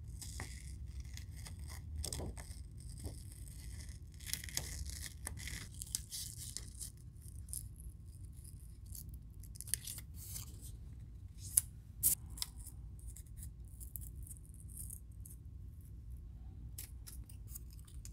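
Scissors cutting through a paper template in short, scattered snips, with the sheet rustling as it is turned and handled. There are two sharper snaps a little past halfway.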